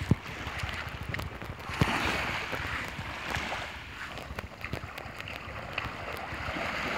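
Shallow seawater splashing and lapping, swelling about two seconds in and again near the end, with wind on the microphone and light crackling throughout.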